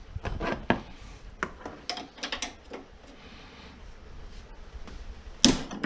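Scattered clicks and knocks of metal fittings as an old hood gas strut on a 2010 Lexus RX450h is worked loose from its mount, ending in one loud sharp snap near the end as the strut end comes off.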